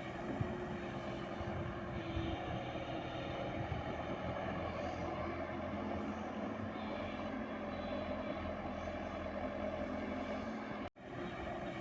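JCB 120 excavator's diesel engine running steadily, heard from outside the machine. The sound cuts out for an instant near the end.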